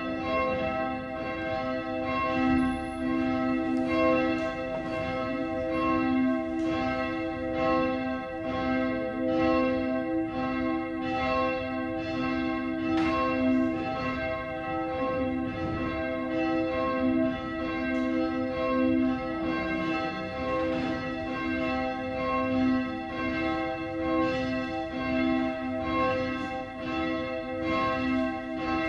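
Church bells ringing: several bells struck over and over, their tones overlapping and hanging on in a steady peal.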